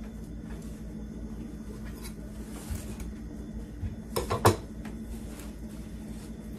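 High-carbon steel butcher knife cutting raw chicken on a cutting board: a few soft knocks, then a quick run of sharper knocks of the blade on the board about four seconds in.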